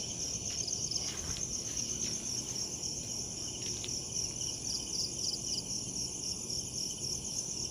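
Steady chorus of night insects, a dense high-pitched trilling made of rapid, even pulses, with a few faint clicks in the first half.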